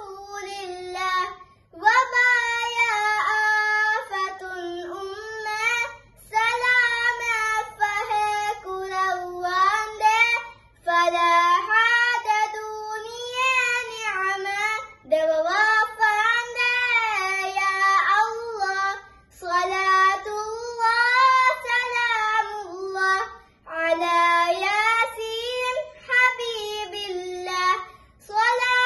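A young girl singing a Dhivehi madhaha (Islamic devotional song) unaccompanied, in long phrases with wavering, gliding ornaments on the notes, and short pauses for breath about every four seconds.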